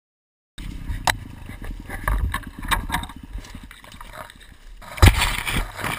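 Low, uneven rumble with rustling and clattering in the brush around a dirt bike lying on its side, and a loud knock about five seconds in. The sound cuts in about half a second in.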